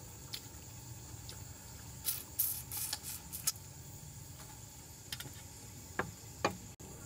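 Crickets chirring steadily, with a cluster of short clicks and knocks about two to three and a half seconds in and two sharper knocks near the end.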